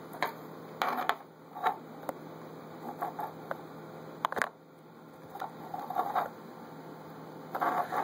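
Clear plastic tub being handled: scattered short clicks, taps and brief scrapes of plastic, a few at a time, with the sharpest click about four and a half seconds in.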